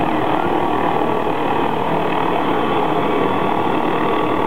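MD 520N NOTAR helicopter's turbine running steadily close by, a continuous mechanical drone with a high, steady whine.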